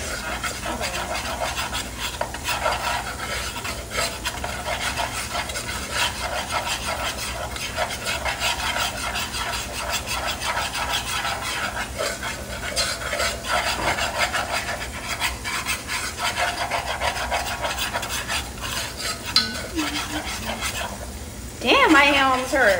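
A spoon stirring and scraping around a metal saucepan on the stove, continuous, with food sizzling in the frying pan beside it. A brief voice sound comes near the end.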